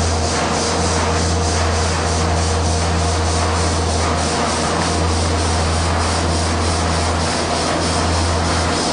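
Stationary steam engine, a converted Ruston & Hornsby 10HR single-cylinder diesel with steam valve gear, running steadily together with its flat drive belt. A continuous hiss carries a quick, even beat over a low hum.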